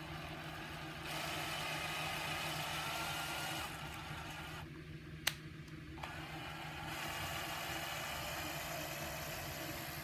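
Cordless drill driving a 6 mm tap to cut threads in a 3D-printed PLA bracket: the motor whines in two spells, from about a second in to nearly four seconds and again from about six seconds on, with a short lull and a single sharp click between them.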